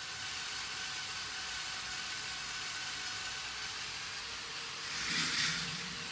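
K'nex roller coaster model running: a steady motor whir, then about five seconds in a louder rush as a coaster train rolls along the plastic track.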